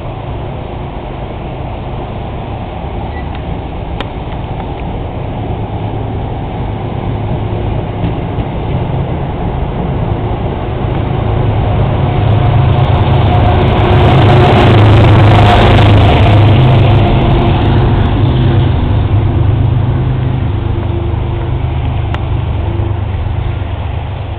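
Shoreliner passenger coaches rolling past close by, a steady low rumble with wheel and rail noise. It swells to its loudest about two-thirds of the way through, then eases off.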